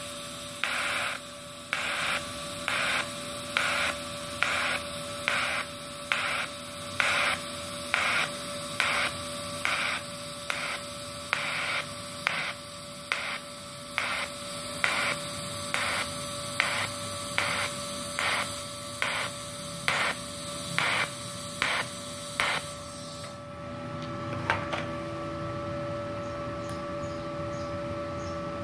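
TIG welding arc from a Multipro TIG 200A-SA IGBT DC inverter welder set to about 128 amps: a steady hiss with an even pulse about one and a half times a second. The arc cuts off about 23 seconds in, leaving the welder's faint steady hum.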